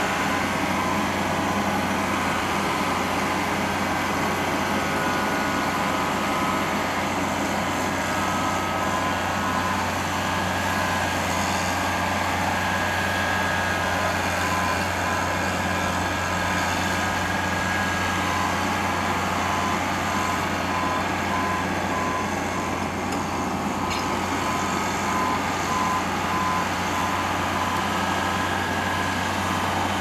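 Engine of a remote-control tracked mobile home mover (Layton Remote-Trax) running steadily as the crawler pushes a manufactured home into place. A high beep starts repeating evenly about eight seconds in.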